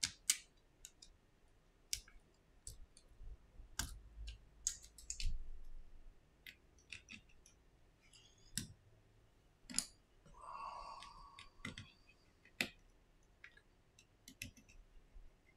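Small sharp clicks and taps, irregular, of a precision screwdriver and small metal parts against an opened iPhone 7's frame and display assembly during a screen replacement. A brief squeak a little after ten seconds in.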